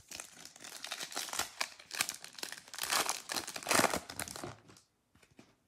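Foil wrapper of a Panini Select football card pack crinkling and tearing as it is opened by hand, with several louder stretches of crackle; it stops about a second before the end.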